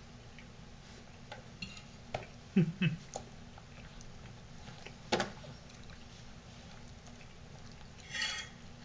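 Dinner-table sounds: a few scattered clinks and taps of cutlery on plates, with a short ringing clink near the end. About two and a half seconds in there is a brief, low hum of an adult voice.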